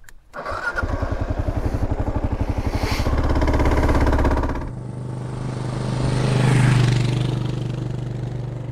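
Kawasaki KLR650 single-cylinder engine started up, catching about half a second in and running with an even beat, revved a few seconds in, then pulling away, rising and easing off near the end.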